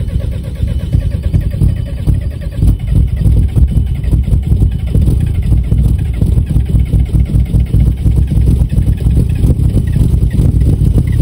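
Volkswagen Jetta's 1.9 TDI (ALH) four-cylinder turbodiesel idling at the tailpipe just after a cold start in freezing weather, a steady pulsing diesel exhaust note. The note changes about two and a half seconds in.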